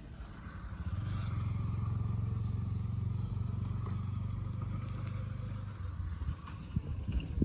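A small engine running, growing louder about a second in, then fading away near the end, followed by a few light knocks and scrapes.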